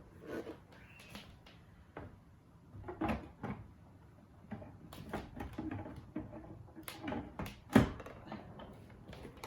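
Plastic parts of a Sirena water-filter vacuum being handled and fitted together: scattered knocks and clicks, the loudest about three-quarters of the way through.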